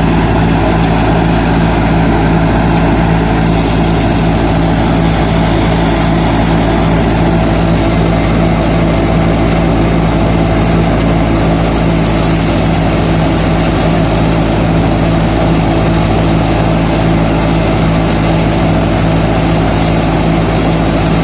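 Harvester engine running steadily at a constant speed. A high hiss joins it about three and a half seconds in.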